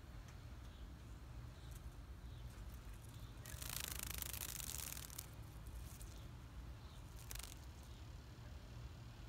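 Leaves of a Chinese pistache branch rustling as a hand moves among them, once for over a second about three and a half seconds in and briefly again near the end, over a low steady rumble.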